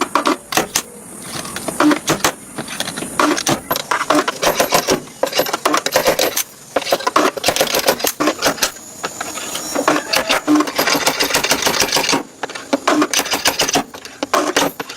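Rapid, irregular metallic clicking and clattering, many sharp taps in quick succession with dull knocks at intervals.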